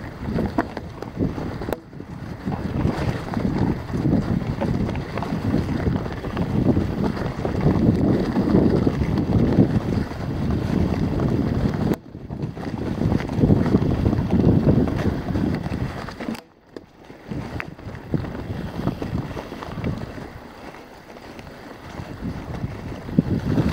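Wind buffeting a chest-mounted camera's microphone, mixed with the rumble and rattle of a mountain bike rolling fast over a rough forest trail. The noise drops away sharply for a moment a few times.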